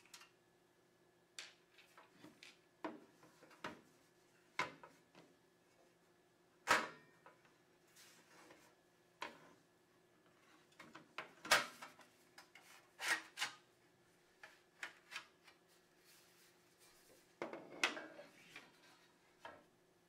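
Sheet-metal cover of a DVR being worked loose and lifted off its chassis: scattered light clicks and knocks of metal, with a longer scrape near the end.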